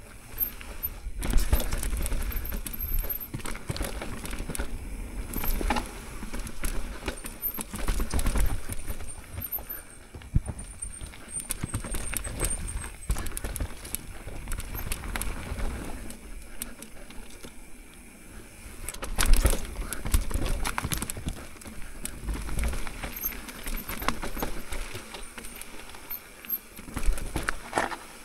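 Mountain bike on a rough downhill trail over rock and dirt: a continuous tyre-and-trail rush with many clicks and knocks from the bike taking hits. The hardest knock comes about nineteen seconds in.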